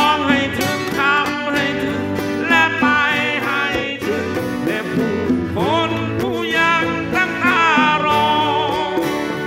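Live acoustic band music: strummed and picked acoustic guitars under a sliding, wavering melody line.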